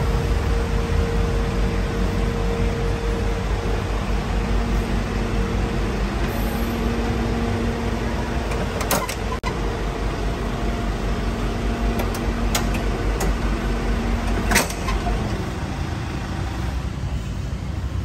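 Truck engine idling steadily with a low hum, with a few short clicks and knocks in the second half.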